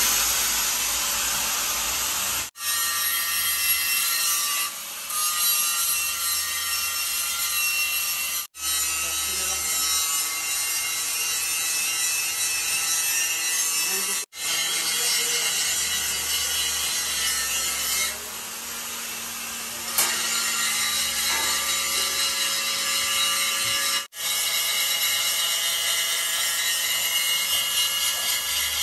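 A power tool running under load with a steady whine, grinding or cutting, heard in several short stretches that cut off abruptly and start again.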